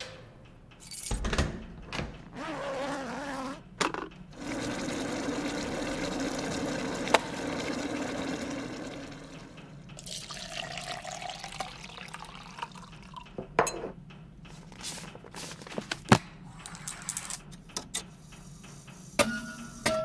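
A run of short, unrelated sound effects from a sound-effects library, one after another: a sudden burst about a second in, a wavering tone, several seconds of steady rushing noise, then scattered sharp clicks and knocks.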